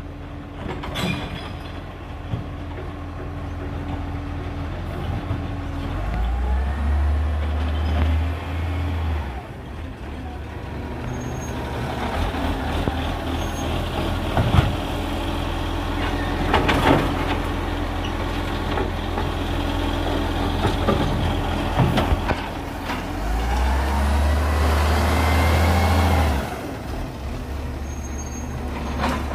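Diesel garbage truck with an automated side-loader arm idling, its engine revving up twice for about three seconds as the hydraulic arm lifts and tips wheelie bins into the body, with a rising hydraulic whine each time. Sharp knocks and clatter come between the lifts as bins and their recyclables are dumped and set down.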